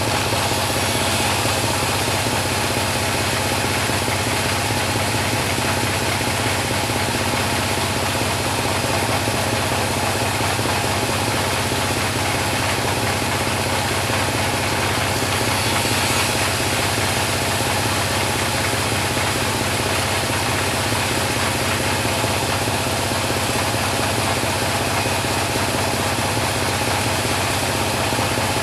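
Type 26 bandsaw sawmill running, a steady even machine drone that hardly changes.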